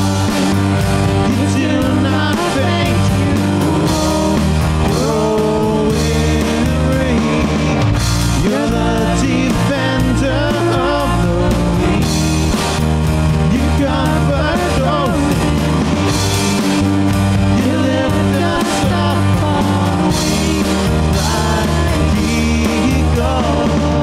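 Live worship band playing a rock-style song: sung vocals over electric guitars, bass and drum kit.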